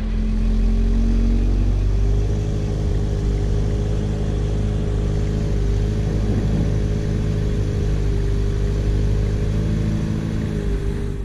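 Ute engine running with a steady low drone, its pitch stepping up slightly about two seconds in; the sound then cuts off suddenly.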